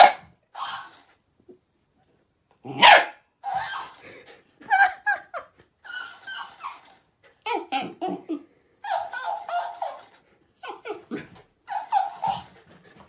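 Dog barking: two loud barks, one at the start and one about three seconds in, followed by a string of shorter, quicker barks and yaps.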